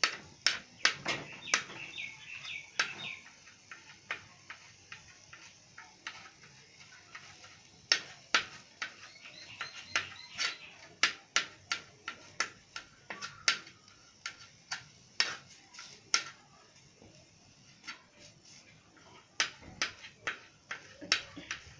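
A metal spatula and knife clatter and scrape against an iron tawa as chicken is stir-fried, giving an irregular run of sharp clicks and taps.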